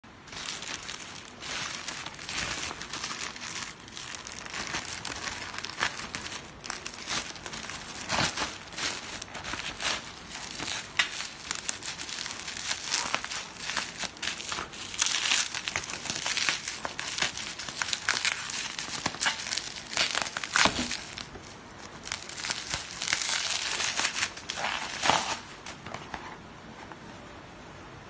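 Plastic mailer packaging crinkling and rustling as it is handled and unwrapped, with irregular crackles and a few sharper rips. It dies down near the end.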